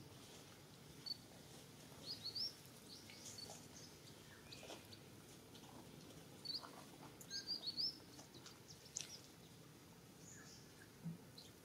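Faint, scattered bird chirps: short high calls in quick runs of two to four, a second or two apart, over a quiet background.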